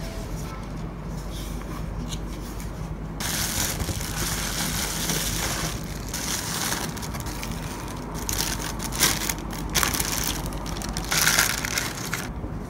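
Bubble wrap and clear plastic packaging crinkling and rustling as it is handled, in irregular bursts starting about three seconds in, loudest near the end.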